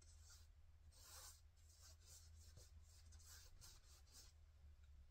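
Faint swishes of a paintbrush stroking acrylic paint onto a stretched canvas, several short strokes in a row, with a quicker run of them about three seconds in, over a low steady hum.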